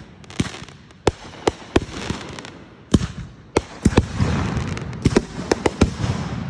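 Aerial fireworks going off, an irregular run of sharp bangs one after another, crowding closer together from about four seconds in.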